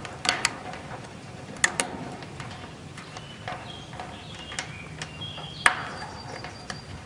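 Scattered sharp taps and clicks of a stick held in a cockatoo's beak knocking against wire mesh and a wooden ledge. There is a quick pair at the start, another pair under two seconds in, and the loudest single tap near six seconds in.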